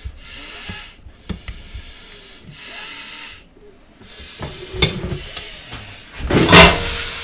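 A knife rasps through a venison steak on a plate in a few drawn strokes. Near the end, a loud sizzle starts as raw venison goes into the hot pan.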